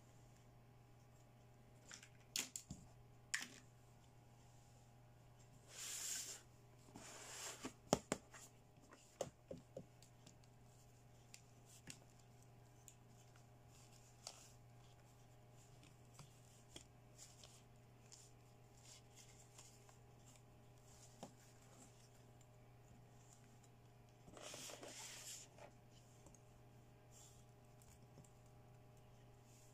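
Hands quietly handling plastic fashion dolls and toy accessories: scattered light clicks and taps, and two brief rustles, the first about six seconds in and the second near the end, over a low steady hum.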